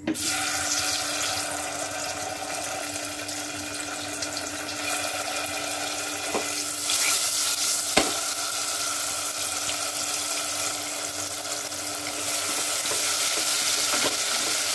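Tomato purée sizzling in hot oil with whole spices in a pot, a steady frying hiss that starts suddenly as the purée hits the oil. There is one sharp knock about eight seconds in, and the sizzle grows louder near the end as a wooden spatula stirs it.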